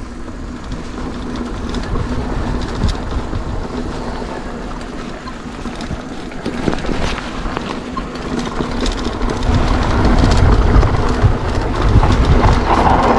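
Mountain bike descending a rough dirt trail: tyres rolling over dirt and the bike's chain and frame rattling, with wind buffeting the microphone. It grows louder in the second half as speed builds.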